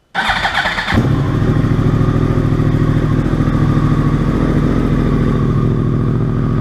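2014 Yamaha YZF-R1's crossplane inline-four engine started on the electric starter: it cranks for under a second, catches about a second in, and settles into a steady idle.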